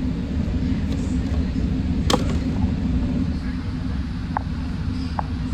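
Steady low rumble of a Metrolink commuter train heard from aboard, with a sharp click about two seconds in and two short, faint squeaks later on.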